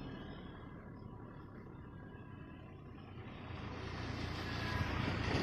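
Wind rumble on the microphone with the faint, steady whine of a small foam RC plane's twin coreless motors and propellers as it flies. The rumble grows louder over the last couple of seconds.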